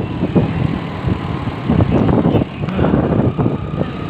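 Motorcycle engine running steadily as the bike rides along a street, with road and wind noise.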